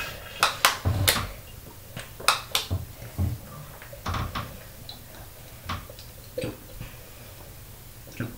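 Someone gulping water from a plastic bottle: a run of swallows heard as soft low thumps mixed with sharp clicks, most of them in the first half, then quieter.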